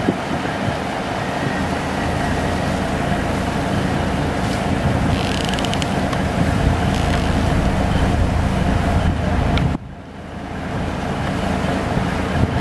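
Steady engine drone with a low hum of evenly spaced tones; it drops away abruptly near the end and swells back up over a couple of seconds.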